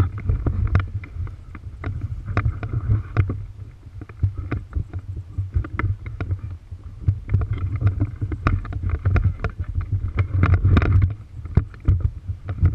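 Low rumbling noise of wind buffeting the microphone, with many short clicks and knocks scattered through it.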